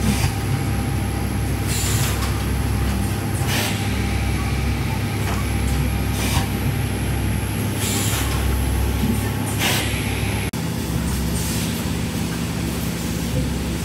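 Pulp tableware production line machinery running with a steady low hum, and a short hiss of compressed air about every two seconds. The sound changes abruptly about ten seconds in.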